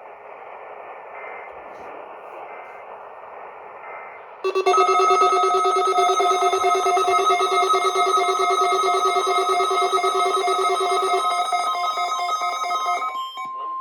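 Radio static, then a loud trilling electronic alert tone with many overtones for about nine seconds. Near the end it gives way to a single steady high tone, the NOAA Weather Radio warning alarm tone heard ahead of a weekly test broadcast.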